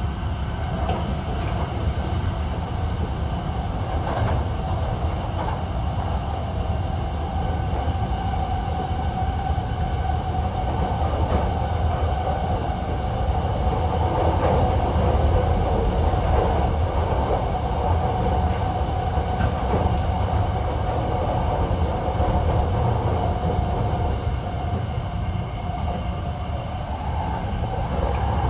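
Running sound inside a Hankyu 1300 series electric train with a Toyo IGBT-VVVF inverter: steady wheel and track rumble with a steady motor whine and a few rail clicks. Near the end the whine starts to rise in pitch.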